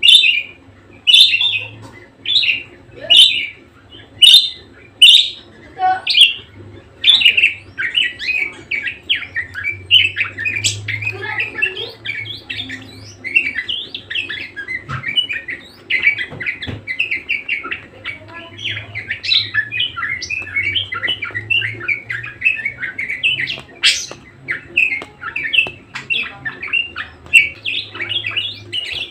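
Budgerigar chattering: a string of loud, separate squawky calls for the first few seconds, then continuous rapid warbling chatter.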